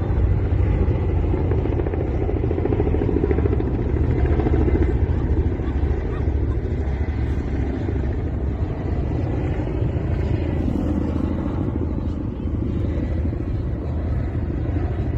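Helicopter flying nearby, its rotor beating steadily and fast throughout, slightly softer in the last few seconds.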